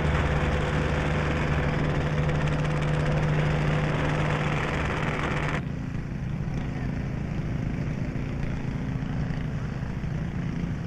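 Steady engine noise with a low hum, cutting abruptly about halfway through to a duller, lower-pitched engine sound.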